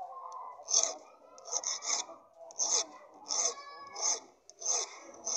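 Steel hand file rasping back and forth on a small piece of metal in even strokes, about one and a half a second: a key being cut by hand.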